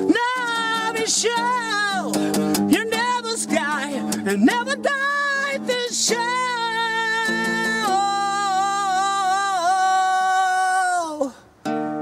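A man singing with an acoustic guitar, strumming chords under a wavering melody. About halfway through he holds one long note with vibrato for about five seconds. It falls away near the end, and after a short break the guitar starts again.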